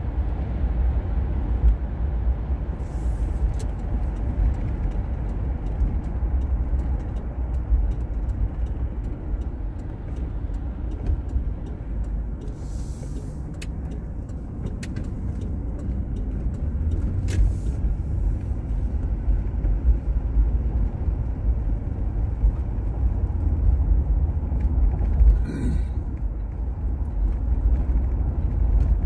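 Road noise inside a moving car: a steady low rumble of the engine and tyres on wet pavement, with scattered light ticks.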